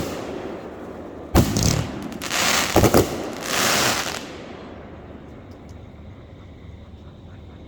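Fireworks going off: a sharp bang, then crackling bursts with a couple of pops and a longer crackle, dying away about halfway through.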